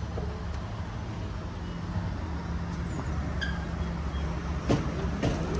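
Steady low rumble of a motor vehicle engine running, with a few light clicks near the end.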